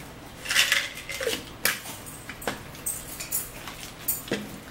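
Forks and dishes clinking at a dinner table: a short rush of noise about half a second in, then several sharp clicks of metal on plate.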